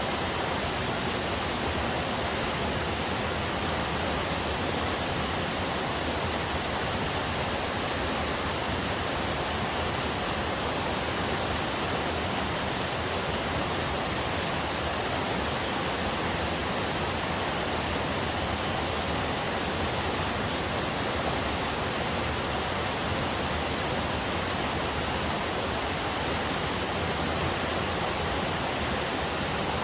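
Waterfall on a forest river: a steady, even rush of falling water.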